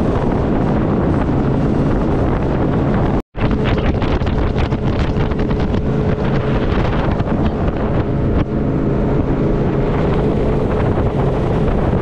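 Small motorboat's engine running steadily at speed, with heavy wind buffeting the microphone and water rushing past the hull. The sound cuts out for a split second about three seconds in.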